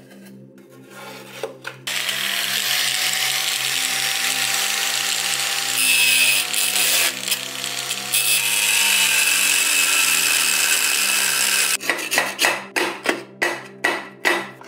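A small rotary grinding wheel running against steel, grinding down the rivet heads that hold a rusty mess tin's handle bracket, with a steady whine that dips briefly midway. It stops and is followed by a quick run of sharp knocks, about three a second.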